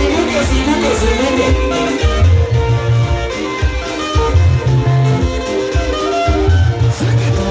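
Live church praise-and-worship band playing an instrumental passage: keyboard and guitar over a strong, steady bass line.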